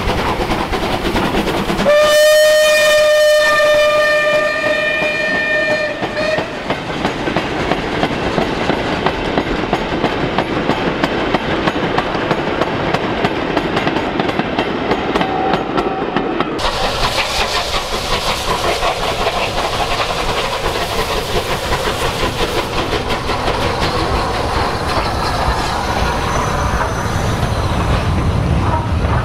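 A steam locomotive's whistle sounds one held note for about four seconds as a goods train hauled by a Bulleid pacific runs past. The wagons' wheels then clatter over the rail joints in a steady clickety-clack. After an abrupt change, passenger coaches roll past with a continuous rumble.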